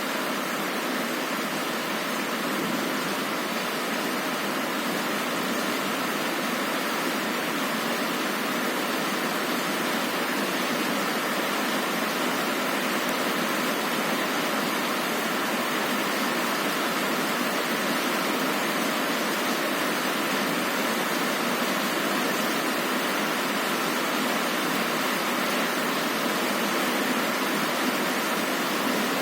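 Heavy rain pouring steadily on a window, a dense even hiss with little deep rumble and no breaks.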